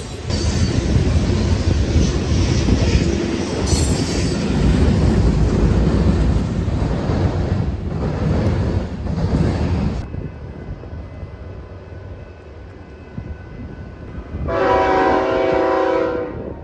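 BNSF freight train of covered hopper cars rolling past close by, with steady wheel and rail rumble. After a cut, an approaching BNSF diesel locomotive sounds its multi-chime air horn once, for under two seconds, near the end.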